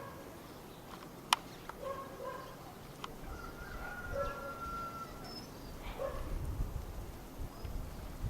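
Faint, short animal calls, one of them held for a second or two, with a single sharp click about a second in. From about three seconds in, wind rumbles on the microphone.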